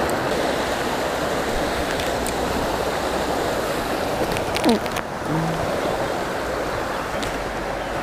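Shallow mountain stream rushing over rocks, a steady wash of running water close to the microphone, with a few light clicks about halfway through.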